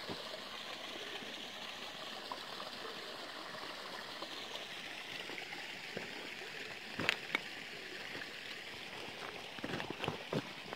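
Rain-swollen creek water flowing steadily over rocks in a normally dry creek bed, runoff after heavy rain. A few sharp clicks and knocks come about seven seconds in and again near the end.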